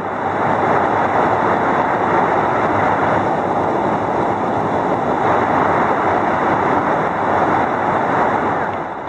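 Rushing water from a waterfall and river close by, a steady, loud, even noise that swells up at the start and eases slightly near the end.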